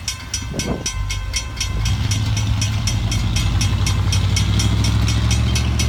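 Railroad grade-crossing warning bell ringing rapidly, about five or six strokes a second, while the crossing gates rise after the train has cleared. From about two seconds in, the low, steady engine rumble of a vehicle driving over the crossing grows loud.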